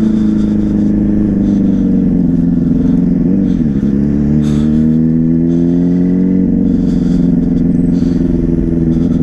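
Yamaha Fazer 600 inline-four motorcycle engine with a WR slip-on exhaust, running while riding. Its pitch dips briefly about three and a half seconds in, then climbs steadily for a few seconds and levels off. The rider finds the bike sounding strange on this ride.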